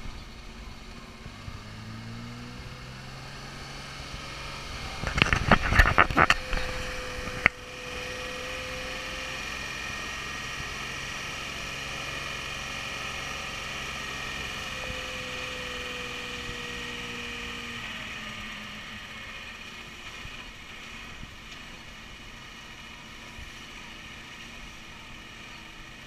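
Unimog 404's petrol straight-six engine running as the truck drives along a lane, with tyre and wind noise. About five seconds in comes a short burst of loud knocks and rattles, then a single sharp click a couple of seconds later.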